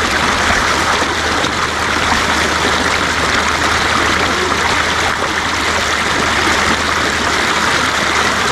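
Shallow mountain stream running over rocks, a steady, even rushing of water.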